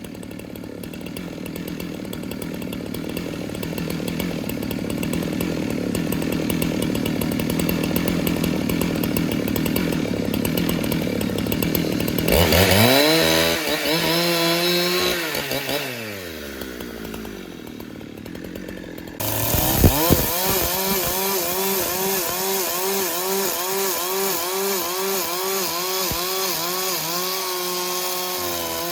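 Chainsaw running and cutting wood. About halfway through, its pitch falls away as the engine slows. After an abrupt change it runs again, its pitch wavering regularly about twice a second.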